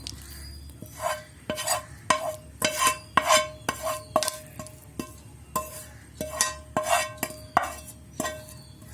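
A metal spoon knocking and scraping against a metal cooking vessel, about two knocks a second, each leaving a short ring, as cooked food is spooned out and worked in.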